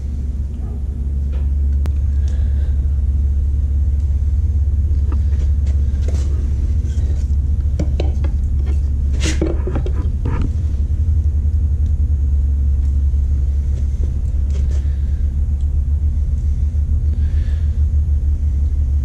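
A steady low rumble, with scattered clicks and a sharp clank about nine seconds in as the tools are handled and laid down on the concrete floor.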